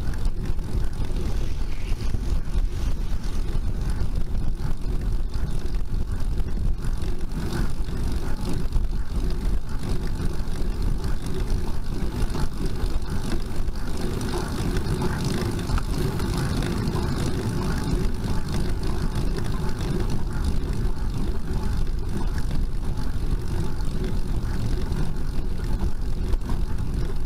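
Steady low rumble of wind and road noise on a bicycle-mounted camera's microphone as a road bike climbs slowly, a little heavier about halfway through.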